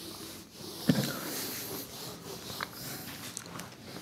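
Whiteboard duster wiping across a whiteboard, a continuous rubbing hiss, with a sharp knock about a second in.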